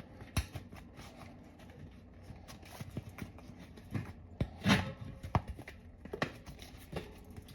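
Rubber bicycle tire being worked around a wheel rim by hand: quiet rubbing with scattered light knocks and clicks, the loudest a little before five seconds in.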